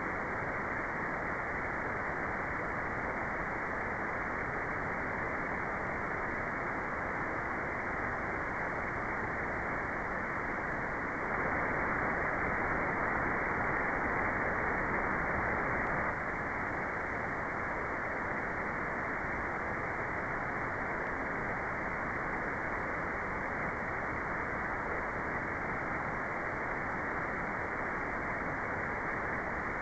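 Steady synthetic white noise, dull and muffled with no high hiss, stepping up a little in loudness for about five seconds in the middle.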